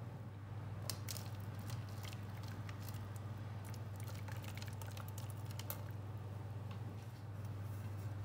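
Silicone spatula smoothing cake batter against parchment paper in a cake pan: a run of soft, squishy clicks and crackles over a steady low hum, easing off after about six seconds.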